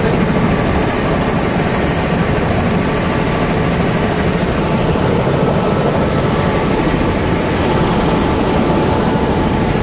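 Helicopter engine and rotor noise heard from inside the cabin: a loud steady drone with a thin high whine over it.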